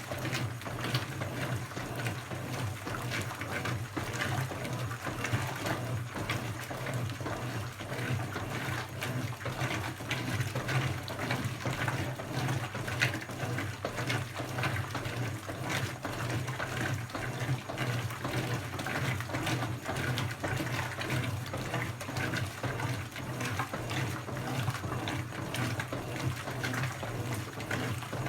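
Brastemp BWK17 17 kg washing machine mid-cycle: water running and splashing inside the tub over a steady low hum.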